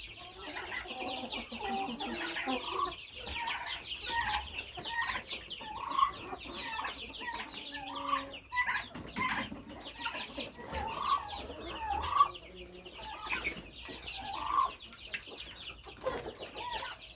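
A flock of chicks peeping continuously in many rapid, high, overlapping chirps, with louder, lower clucking calls mixed in every second or so.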